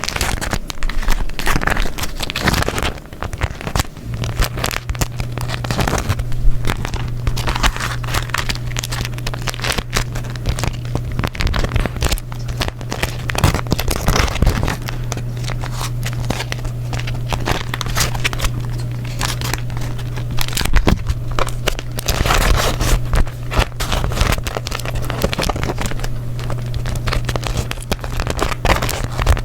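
Beeswax paper being crumpled and folded by hand: dense, irregular crackling and crinkling with a sticky quality. A steady low hum comes in about four seconds in.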